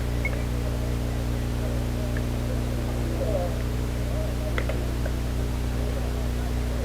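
Steady low electrical hum with faint, indistinct distant voices and a couple of light clicks.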